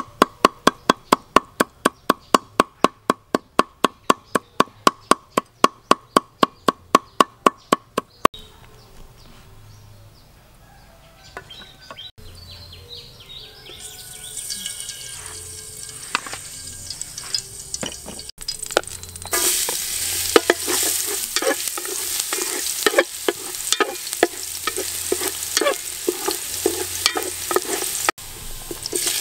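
A cleaver chopping garlic on a wooden chopping board, fast even strikes at about four a second for some eight seconds. Later, minced garlic sizzling in hot oil in an aluminium pot while a wooden spatula stirs and scrapes it.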